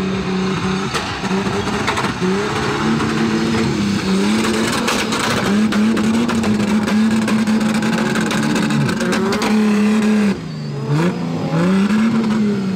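Off-road race car's engine revving hard, its pitch climbing and dropping back several times as it runs through the gears. About ten seconds in it briefly eases off, then revs up again.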